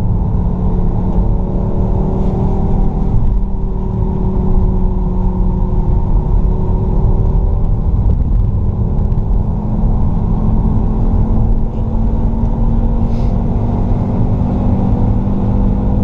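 Fiat Stilo Abarth's 2.4-litre five-cylinder engine running continuously under load at speed. The engine note holds steady, then climbs slowly from about halfway through as the revs build.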